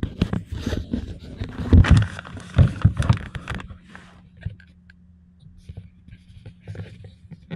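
Handling noise as a handheld camera is moved about in a truck's sleeper cab: rustling, rubbing and knocks for the first three and a half seconds or so. After that it goes much quieter, leaving a faint steady hum and a few small clicks.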